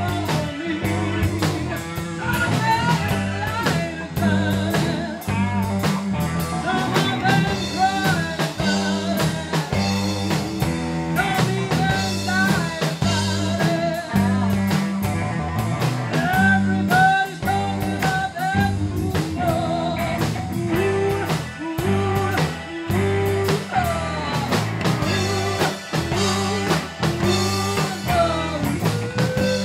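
Live blues band playing, with a woman singing lead over electric guitar, bass guitar and drum kit locked into a repeating riff.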